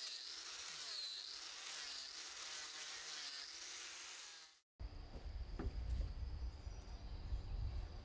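Outdoor insect chorus, a dense high chirring that swells and falls about once a second. It cuts off abruptly about four and a half seconds in. It gives way to quieter ambience with one steady high-pitched trill and a low rumble.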